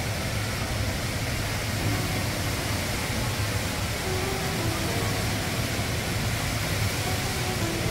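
Indoor waterfall, the Rain Vortex, pouring down into its basin with a steady, even rush of falling water.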